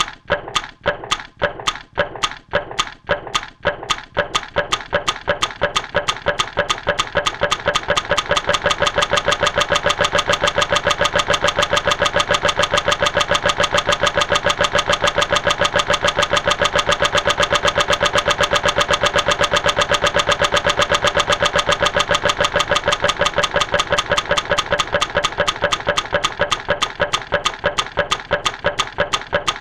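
An engine-like sound effect of regular sharp strokes. It starts at about two a second, speeds up over the first few seconds into a fast, steady beat, and slows a little near the end, like an engine starting and running.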